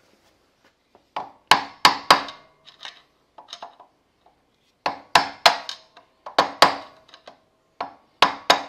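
A hammer striking a flat steel drift held against a motorcycle's front sprocket nut, to lock the freshly torqued nut. The taps are sharp and metallic, each ringing briefly, and come in two runs of quick blows.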